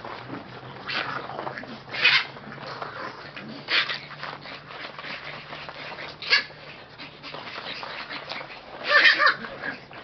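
French bulldogs playing and chasing, with five short yips spread irregularly through the scuffle; the loudest come about two seconds in and near the end.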